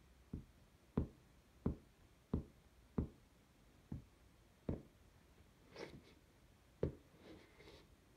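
Rubber platform sole of a canvas high-top Converse sneaker tapping down on a hard floor: about eight sharp taps, roughly one every two-thirds of a second, with a gap and softer scuffs of the sole near the end.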